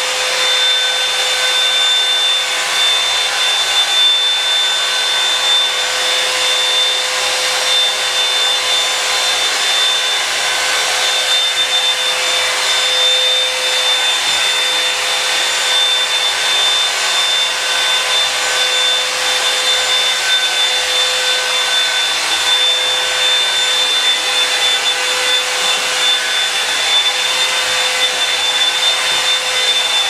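Revlon One-Step blow dryer brush running continuously: a loud, even rush of hot air with a steady high whine.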